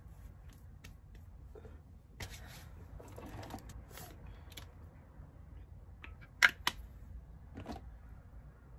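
Skincare bottle handled: light rustling and small taps, then two sharp plastic clicks close together about six and a half seconds in.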